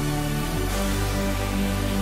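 Background music with held chords that change about half a second in.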